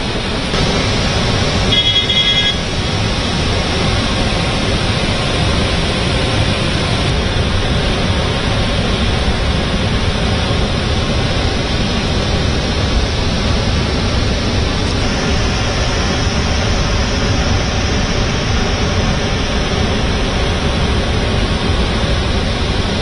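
Water rushing through the open gates of a large dam spillway: a loud, steady rush. A short high-pitched tone sounds briefly about two seconds in.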